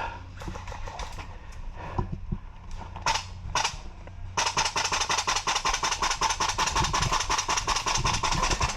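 Airsoft gun firing: a couple of separate shots, then from about halfway a long, rapid full-auto string.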